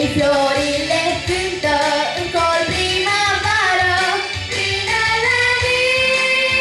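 Young girls singing a pop song into microphones over instrumental backing.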